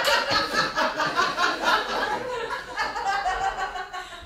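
A man laughing hard in quick repeated bursts that die down toward the end.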